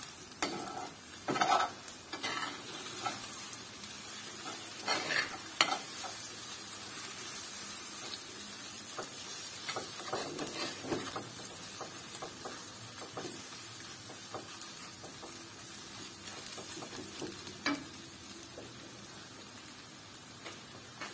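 Scrambled eggs with sliced sausage and green peppers sizzling in a frying pan as a metal spoon stirs and scrapes through them, with sharper clinks and scrapes of the spoon against the pan now and then. The stirring stops near the end, leaving the sizzle.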